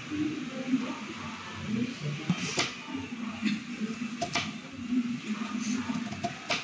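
Kitchen knife cutting on a plastic cutting board: a few sharp taps of the blade on the board, over a low murmur of background voices.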